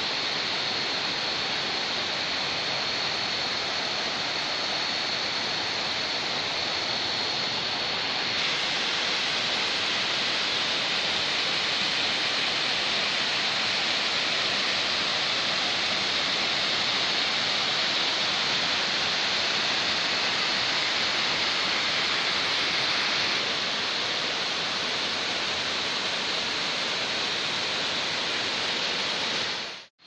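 Steady rush of water from small cascades pouring over boulders and rock slabs in a rocky stream. It grows slightly louder about eight seconds in.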